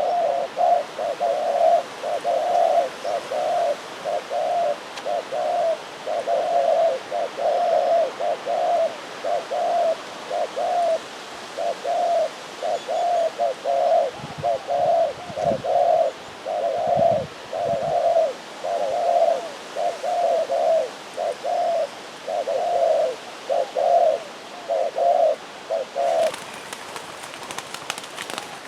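A dove cooing over and over: short, even coo notes a little more than one a second, which stop a couple of seconds before the end. As the cooing stops, a brief crackle of rustling clicks follows.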